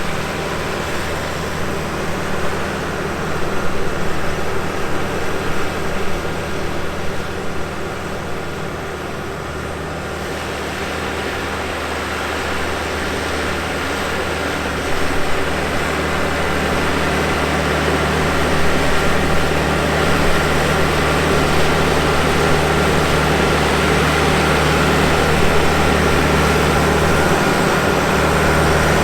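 Diesel engine of a John Deere 450H crawler dozer running steadily while working, its level swelling and easing and growing louder over the second half.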